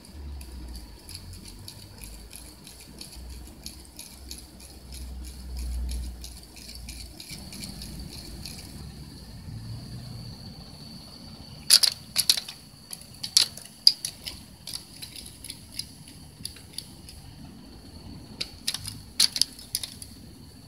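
Light clicking and jangling rattles as a cat plays with a teaser toy: a run of fine quick clicks, then a few clusters of sharper, louder clicks about halfway through and near the end, over a faint steady high tone.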